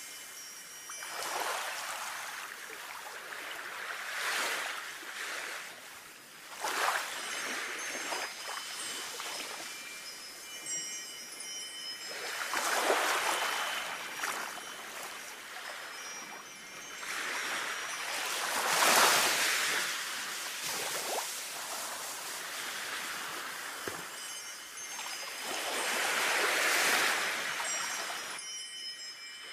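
Sea waves washing ashore in slow surges every few seconds, with wind chimes tinkling throughout.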